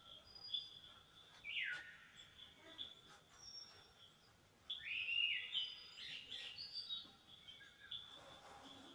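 Wild birds calling over a steady, high-pitched insect trill. Two louder bird phrases, each sweeping down in pitch, come about one and a half seconds in and again near the middle, with brief high whistles in between.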